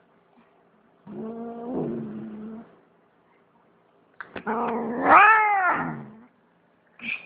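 Domestic cat yowling in protest at being handled: a long low moan about a second in, then a louder yowl that rises and falls in pitch, and a short cry near the end.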